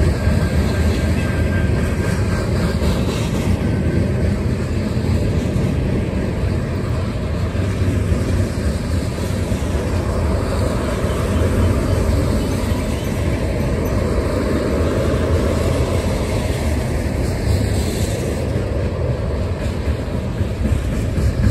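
Freight train cars (tank cars, covered hoppers and well cars) rolling past, a steady rumble of steel wheels on rail.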